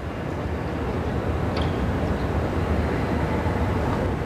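Steady low machinery noise of a car factory's production hall, with a faint metallic clink about one and a half seconds in.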